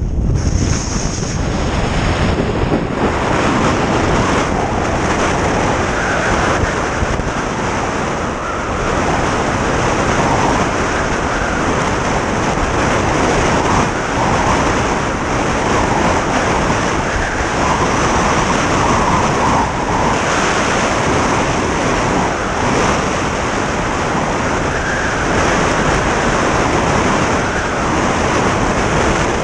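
Strong wind buffeting an action camera's microphone in uneven gusts, with skis moving over snow.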